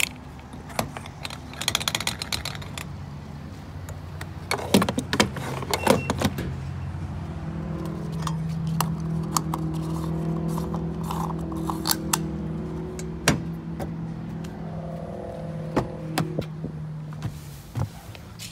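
Keys jangling and a run of clicks and clunks, then a Toyota Tacoma pickup's engine running steadily from about eight seconds in, with light rattles over it.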